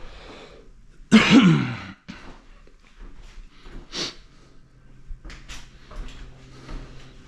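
A man coughs once, harshly and loudly, for just under a second, followed by faint scattered knocks.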